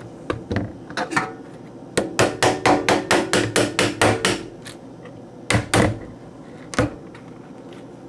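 IBM 5150 keyboard's steel-framed buckling-spring switch assembly being pounded to free its stuck top plate so it will slide apart. Sharp knocks: a few scattered ones, then a quick run of about a dozen starting about two seconds in, each with a short metallic ring, then three more near the end.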